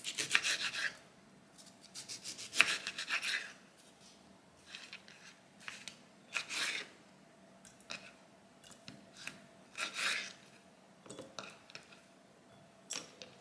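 Knife sawing through an orange's rind and flesh on a wooden cutting board, in short rasping bursts of quick back-and-forth strokes. Later there are a few scattered light taps and clicks.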